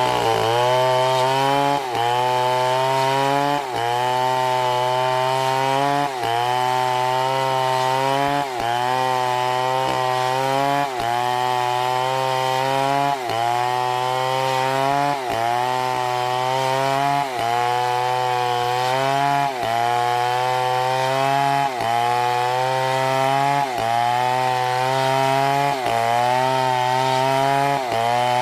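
Chainsaw engine running at high revs through wood. Its pitch jumps up and then sags under the load of the cut about every two seconds, in an even repeating cycle.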